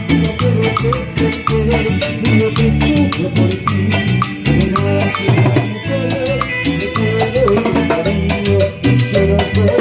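Live Latin dance band playing an instrumental passage, with a steady, dense percussion rhythm over a moving bass line.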